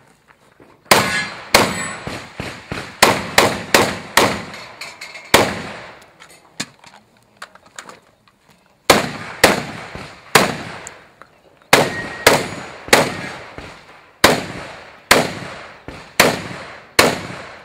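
Shotgun fired in fast strings of shots, roughly two or three a second, each shot trailing off briefly. There is a pause of about three seconds near the middle and a shorter one a little later.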